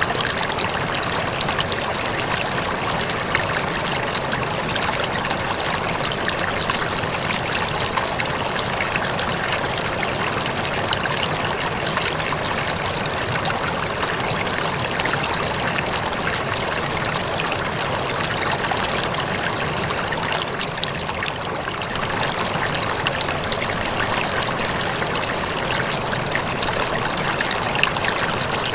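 Water in a home aquarium trickling and splashing steadily, a continuous fine crackle of moving water with no change in rhythm.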